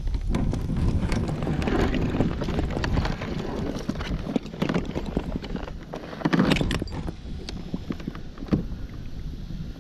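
Clunks, knocks and rattles of gear being handled in a fishing kayak, with one louder thump about six and a half seconds in. Wind buffets the microphone through the first few seconds.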